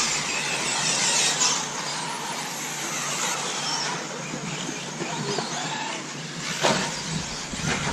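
Radio-controlled off-road race cars running around the track, their motors whining and gliding up and down in pitch as they accelerate and brake. A sharp clatter near the end.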